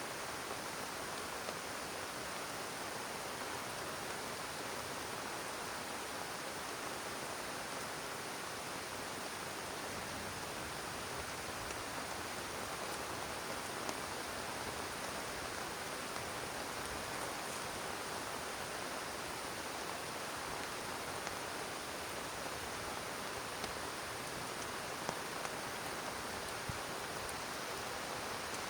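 Steady heavy rain, an even hiss with a few louder single drops ticking here and there.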